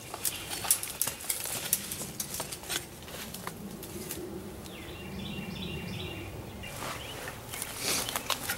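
Rustling, snapping and scraping in woodland undergrowth, a run of sharp cracks and clicks, with a few short high bird chirps in the quieter middle.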